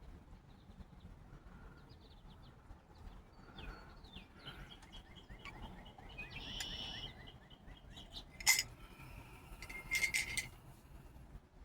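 Small wild birds chirping and calling in short repeated notes over faint outdoor background noise, with a sharp click about eight seconds in and a louder flurry of calls and clicks near the end.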